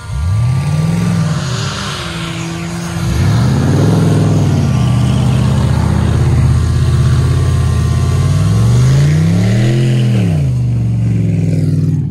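Pickup truck engine revving, its pitch rising and falling back three times as the truck drives in the snow. The fainter, steady whine of a small quadcopter drone's propellers hovers overhead.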